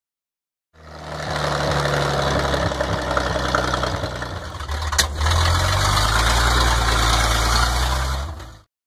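Old truck engine running steadily. About five seconds in a sharp click, after which the engine note settles lower; the sound cuts off abruptly near the end.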